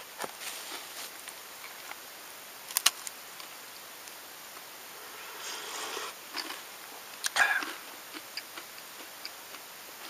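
Someone sipping from a steel camping mug: a soft slurp about five to six seconds in, small scattered clicks, and two sharper clicks of the mug, about three and seven seconds in.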